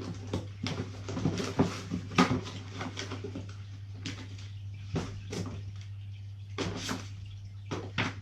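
Rummaging through the packaging in a cardboard bike box: an irregular string of rustles, knocks and light clatters, over a steady low hum.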